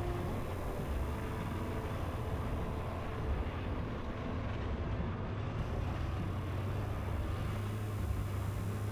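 Snowmobile engine running steadily while riding along a packed snowy road: a continuous low drone with rushing noise over it.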